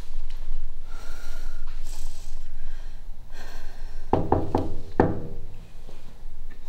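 A woman breathing hard and gasping, then a few short sobbing cries in quick succession about four seconds in.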